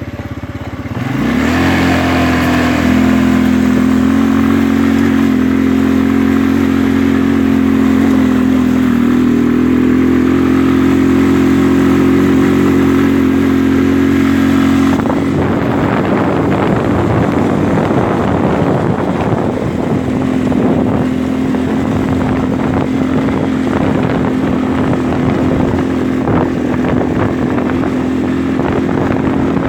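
ATV engine revving up about a second in, then running at a steady pitch while riding; about halfway through a rough rattling noise joins it.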